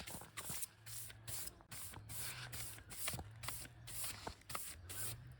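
Regular swishing strokes, about two to three a second, like a brush sweeping sawdust off a freshly milled wood surface.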